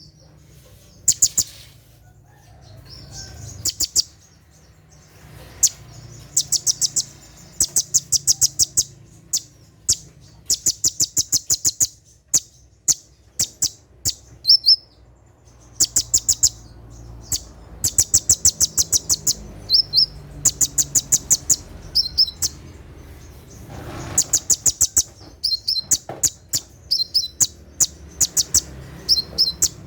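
Konin (kolibri ninja sunbird) singing its rapid 'tembakan' bursts: fast runs of sharp, high ticking notes, about ten a second, lasting one to two seconds each with short pauses between, and a few brief, slightly lower trills.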